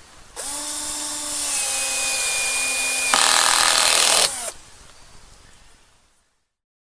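Electric drill-driver running a screw into a wooden peg. The motor whines steadily for about four seconds, gets louder about three seconds in, then stops.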